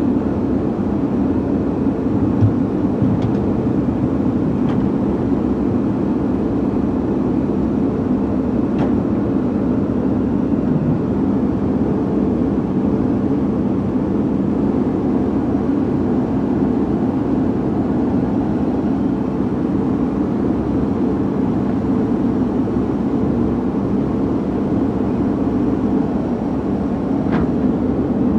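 JCB backhoe loader's diesel engine running steadily close by as it works its bucket in the floodwater, with the rushing water under it.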